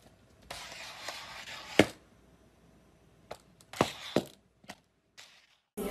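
A cat scrambling across a tiled floor: a spell of rustling, then a sharp knock, followed by a quick run of four more clicks and knocks.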